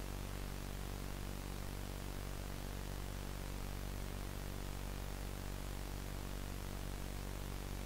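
Steady videotape-style static hiss over a low, unchanging electrical hum.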